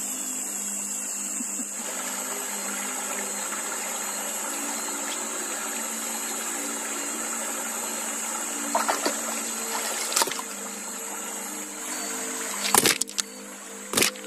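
River water trickling and sloshing under a steady high-pitched hiss, with a few sharp clicks and two loud knocks near the end.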